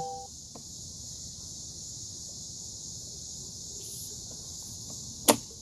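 A steady high-pitched hiss, with a single sharp click near the end.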